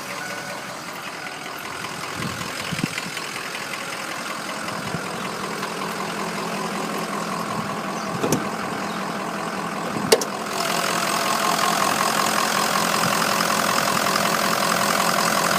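2004 Ford F-350's 6.0 L Power Stroke V8 turbodiesel idling steadily. There are two sharp clicks about eight and ten seconds in, and just after the second the engine sound grows louder and holds there.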